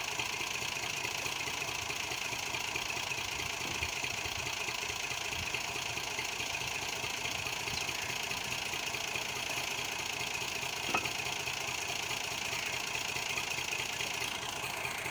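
Massey Ferguson 240 tractor's three-cylinder diesel engine idling steadily, with a single brief click about two-thirds of the way through.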